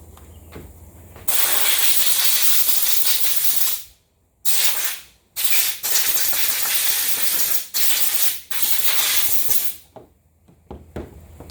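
Pressurised spray hissing in five bursts of varying length, the longest about two and a half seconds, with short breaks between.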